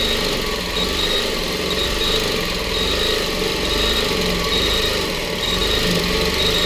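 Longarm quilting machine running steadily as it stitches, with a high whine that comes and goes.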